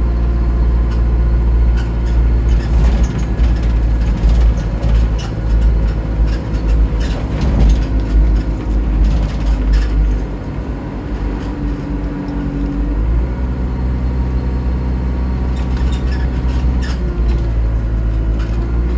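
Go-Ahead London bus SE64, a single-decker with a leaking turbocharger, running along with a steady engine drone and frequent rattles and clicks. The engine note drops about ten seconds in and settles into a new steady note a few seconds later.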